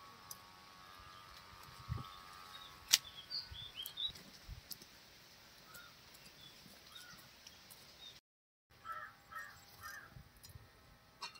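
A crow cawing three times in quick succession near the end, with a few faint small-bird chirps about three to four seconds in. A single sharp tap about three seconds in is the loudest sound.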